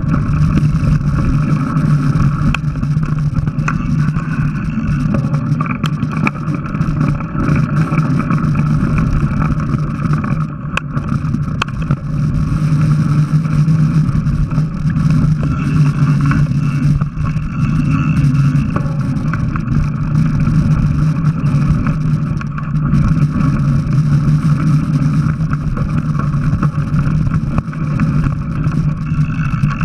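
Mountain bike riding a dirt forest trail, heard through a bike-mounted action camera: a loud, steady, muffled droning rumble of wind and trail noise that holds on without a break.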